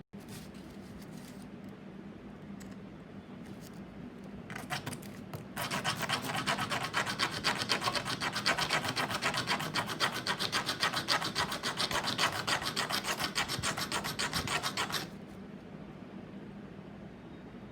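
Rapid, rhythmic strokes of a hand file on a metal soldering bit, shaping its tip. A few strokes come about four and a half seconds in, then a long fast run of strokes that stops abruptly near the fifteen-second mark.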